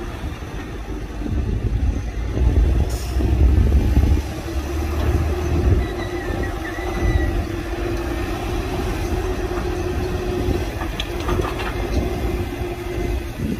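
Heavy diesel construction machinery running: a deep engine rumble, louder between about one and six seconds in, over a steady hum. A brief high squeal comes about six seconds in, and a few light clanks near the end.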